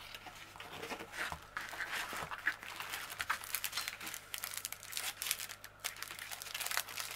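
Plastic and paper packaging of a diamond painting kit crinkling as the rolled canvas is unwrapped and its small plastic bags of drills and tools are handled, in many short, irregular crackles.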